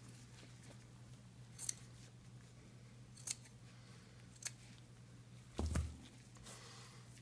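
Scissors cutting through soft cast padding: three short, sharp snips about a second apart, then a louder clunk as the scissors are put down on the table, over a steady low hum.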